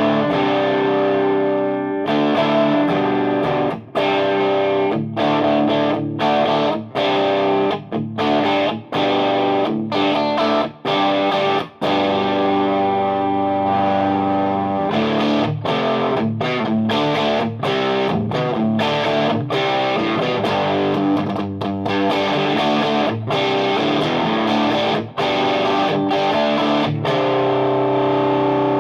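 Distorted electric guitar through a Frantone Hep Cat overdrive pedal into a clean amp channel, strumming chords with frequent short stops between them.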